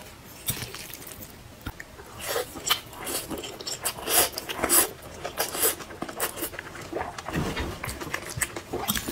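Close-up mouth sounds of eating: noodles slurped and chewed in a dense run of short wet slurps and smacks from about two seconds in, after a few light clicks.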